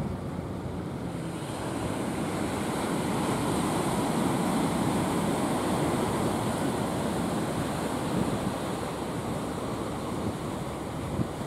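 Sea surf washing onto the shore, with wind on the microphone; the rush swells about two seconds in and eases near the end.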